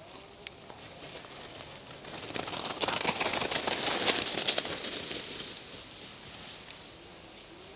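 Dry fallen leaves crackling and rustling under running feet, building about two seconds in, loudest around the middle, then fading.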